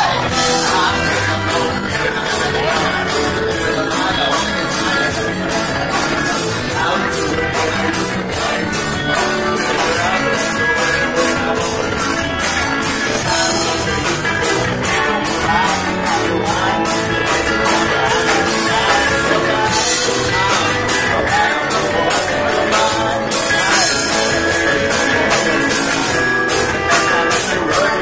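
Live rock band playing: a singer with an acoustic guitar and a drum kit keeping a steady beat with regular cymbal hits.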